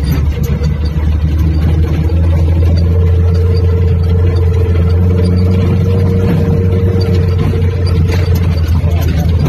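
Suzuki Katana's small four-cylinder engine running loudly at steady revs while the 4x4 drives off-road.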